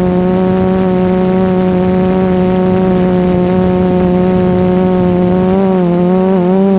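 Quadcopter drone's propellers and motors whining at a steady pitch, heard close up from a phone strapped to the drone. The pitch dips and wavers briefly near the end as the motors change speed.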